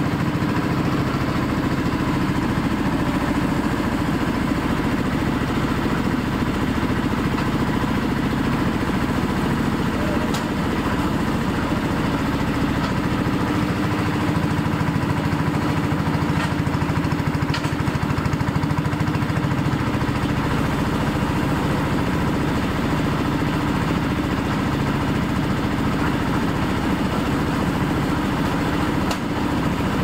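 Concrete mixer's 10 HP diesel engine running steadily at an even speed, with a few faint clicks over it.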